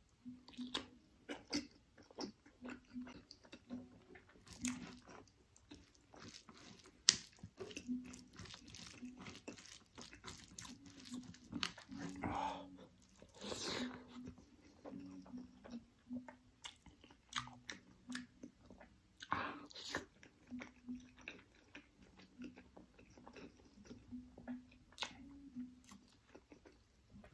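Close-up wet chewing and biting of curried chicken gizzard and liver with rice: irregular smacking clicks of the mouth, with fingers squishing rice into the gravy.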